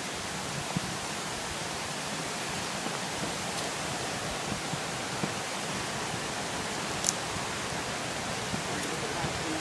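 Steady rushing roar of a nearby waterfall and mountain creek, with a few light clicks, the sharpest about seven seconds in.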